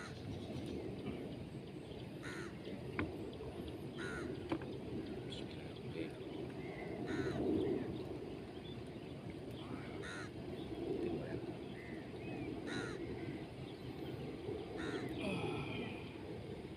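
Crows cawing repeatedly, a short harsh call every second or two, over a steady low background noise.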